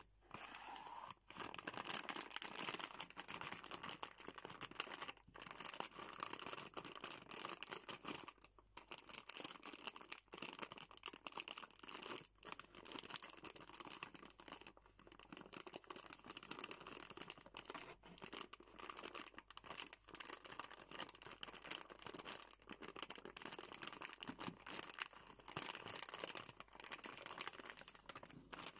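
Plastic sweet-packet film crinkling as fingers squeeze, turn and rub the bag, a continuous crackle broken by short pauses every few seconds.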